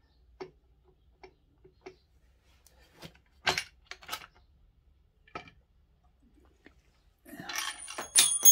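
Demon X 170 pit bike's metal engine side casing being worked loose by hand: scattered light knocks and clinks of metal, then a scraping clatter with sharp ringing clinks near the end as the cover comes away from the engine.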